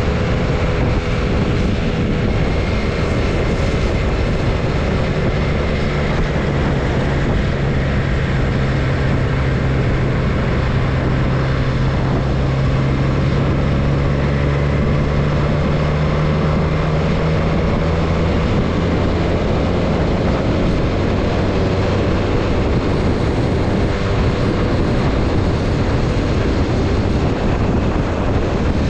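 Motorcycle engine running steadily in fifth gear at about 30 to 45 mph, with wind rushing over the microphone and tyre noise from the road. The engine's pitch drifts gently up and down as the speed changes, with a stronger low hum for a stretch in the middle.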